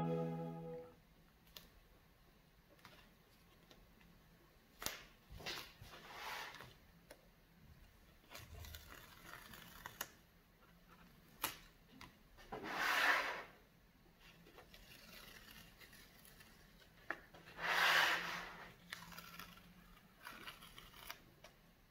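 Yellow masking tape being peeled off the painted edges of a sketchbook page: two faint tearing rips, each about a second long, with scattered clicks and paper handling between them.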